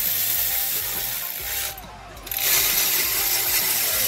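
Hand ratchet wrench being ratcheted rapidly in two runs, with a short pause between them about halfway through.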